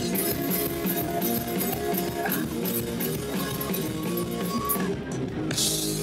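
Live rock band playing an instrumental passage: electric guitars over a drum kit with steady cymbal strokes, and no singing.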